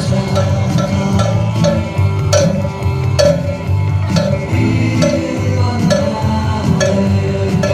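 Rock band music playing, with a cowbell struck in a steady rhythm over guitar and bass.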